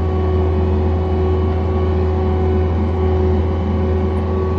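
John Deere 317 skid steer's diesel engine running steadily at an even speed, with a constant low hum.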